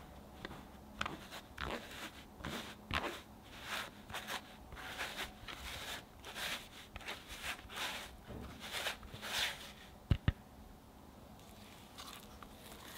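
Fine-mesh sieve worked by hand over a glass bowl, sifting flour, cocoa powder and baking powder: soft rasping strokes about two a second. Two sharp knocks come just after ten seconds in.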